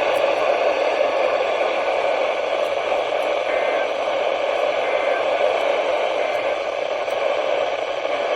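Loud, steady static hiss from a weather radio receiver on a weak, inconsistent VHF signal, drowning out the NOAA Weather Radio warning voice.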